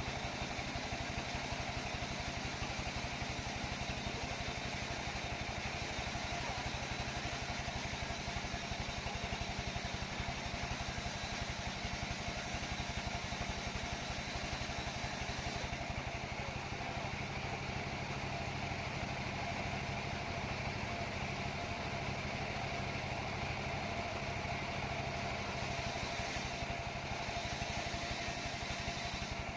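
Sawmill machinery running steadily: a continuous engine drone with a rapid low pulse. Its hiss above it thins out about halfway through.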